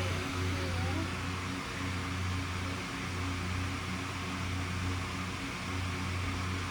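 Steady low mechanical hum under an even background hiss.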